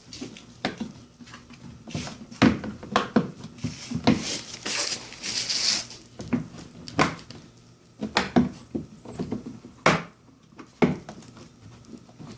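Hard plastic knocking, clicking and scraping as a replacement Mazda RX-8 exhaust trim bezel is handled and pushed against the rear bumper. There are a dozen or so sharp knocks and a longer rasping scrape about four to six seconds in.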